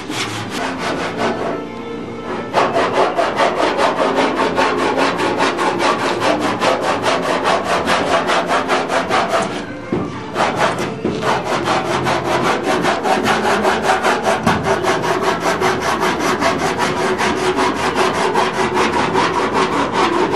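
Hand block sanding on a car body panel: sandpaper rubbing over filler and primer in rapid, even back-and-forth strokes, with brief pauses about two seconds in and about ten seconds in.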